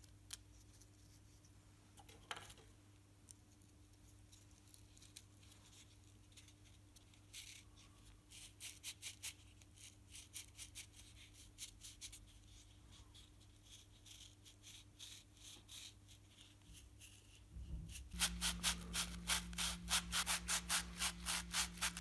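Small wooden part sanded by hand on a sheet of sandpaper: faint rubbing strokes, scattered at first, then a run of quick, even back-and-forth strokes of about five a second near the end.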